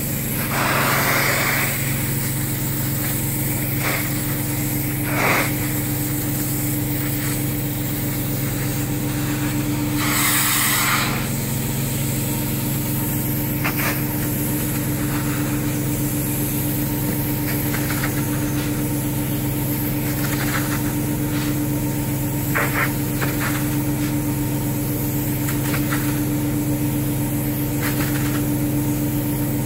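Truck-mounted carpet-cleaning unit running with a steady hum, while the hand-held upholstery extraction tool draws hissing suction across microfiber fabric in strokes. Brief louder hissing bursts come about a second in and again about ten seconds in.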